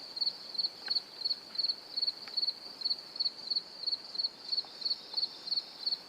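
An insect chirping: a high, even chirp repeated steadily about two to three times a second, each chirp a quick little cluster of pulses. A few faint clicks sound beneath it.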